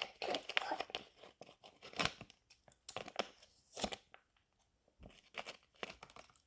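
Plastic blind-bag packaging being cut open with scissors: irregular crinkling and crackling, with louder snaps about two and four seconds in. The packaging is stiff and hard to cut.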